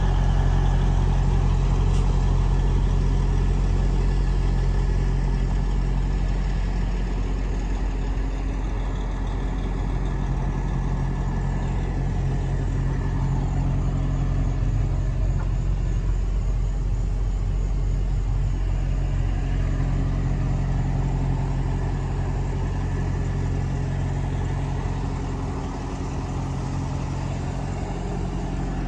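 A semi-truck's heavy diesel engine idling steadily with a deep, even hum.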